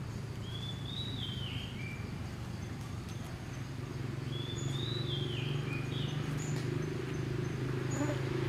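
A bird's whistled call, a short phrase that rises then drops, given twice about four seconds apart, with faint high chirps, over a steady low hum.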